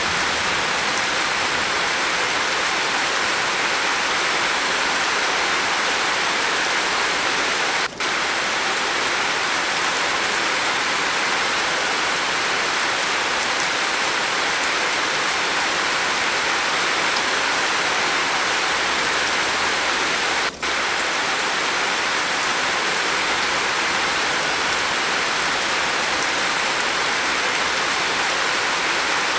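Steady rain falling on a roof, an even hiss of countless drops, broken by two split-second dropouts, one about eight seconds in and one about twenty seconds in.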